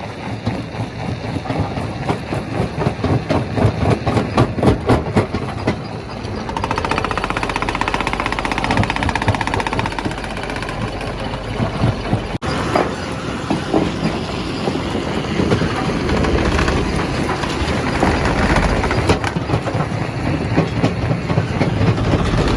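Primary rock crusher running and breaking stone. For the first few seconds there is a fast clatter of rock knocking and cracking. After that it settles into a steadier grinding drone with scattered knocks.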